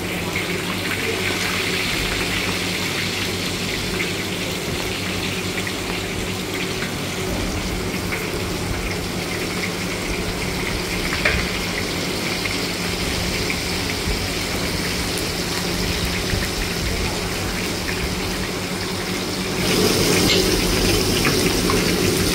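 Shrimp cakes deep-frying in a wok of hot oil: a steady sizzle, with one sharp click about eleven seconds in. The sizzle gets louder and fuller near the end, heard close over the wok.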